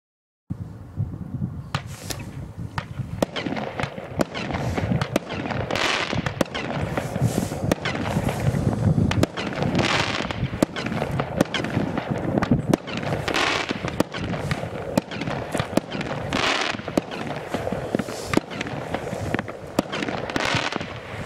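Keller Airforce firework firing: starting about half a second in, a rapid, unbroken string of sharp launch cracks and bangs, with louder hissing swells every three to four seconds.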